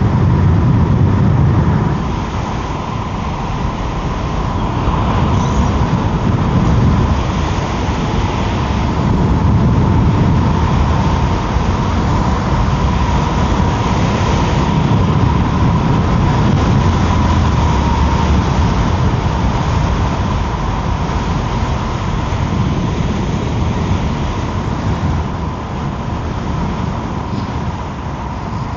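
Wind buffeting the microphone while riding an Emove Roadster electric scooter, a heavy rumble that swells and eases with the gusts, over a steady high whine.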